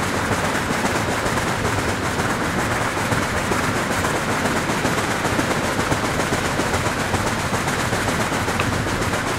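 Water pouring over the concrete weir of a stepped fountain and splashing into the pool below: a steady rushing, crackling splash.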